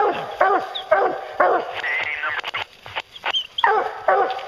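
A pack of hounds baying and barking treed at the foot of a tree, the bark of dogs holding a bear up the tree, which the hunter guesses is in a big white pine. The barks come about every half second, with a brief high whine and a short lull in the middle before they start again near the end.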